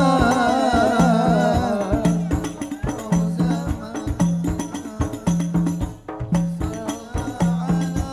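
Hadroh ensemble performing sholawat: a wavering sung line fades out about two seconds in, leaving frame drums playing a fast, dense rhythm with a deep bass-drum note about once a second.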